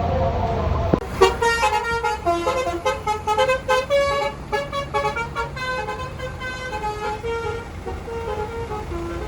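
Bus telolet musical horn playing a quick tune of short stepped notes. It starts about a second in and thins out toward the end.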